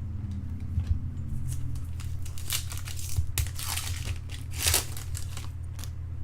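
Foil trading-card pack wrapper being torn open and crinkled, in a series of crackling bursts through the middle of the clip, the loudest near the end.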